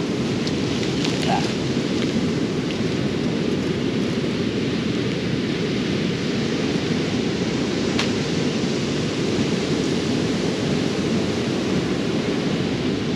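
Steady roar of ocean surf breaking on a beach, a continuous low rushing noise with no break.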